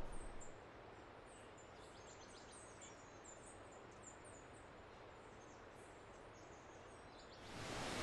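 Faint forest background with many short, high birds' chirps. Near the end, a loud, even rushing of a churning waterfall swells in.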